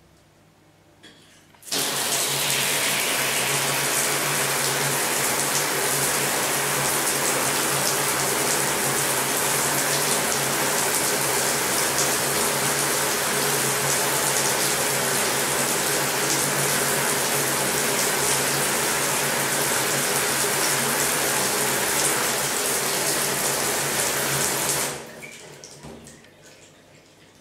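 Shower head turned on about two seconds in, spraying water in a steady, even rush. It is shut off near the end, the flow dying away over a second or two.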